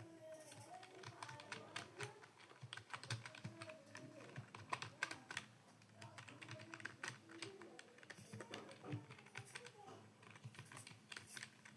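Computer keyboard typing: a fast, irregular run of faint key clicks.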